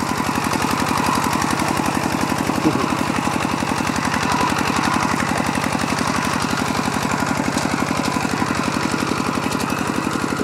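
Single-cylinder diesel engine of a two-wheel walking tractor running steadily under load as it ploughs a flooded rice paddy, with a fast, even beat.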